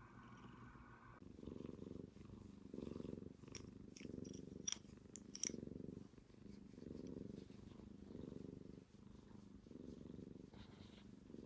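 Calico cat purring close up, a low rumble that swells and fades about once a second, with a few sharp clicks around the middle.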